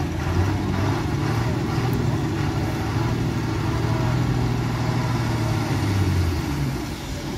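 Heavy lorry's diesel engine running steadily under load as the truck crawls around a tight hairpin bend, a low drone that eases off near the end.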